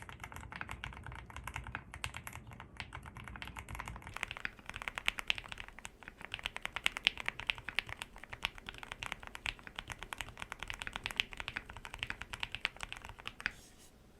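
ZOOM65 mechanical keyboard with Outemu transparent switches being typed on quickly: a rapid, uneven stream of key clicks that stops just before the end.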